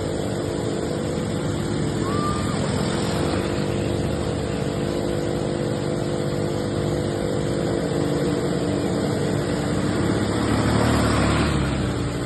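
ATV engine running steadily under way, swelling slightly about ten seconds in.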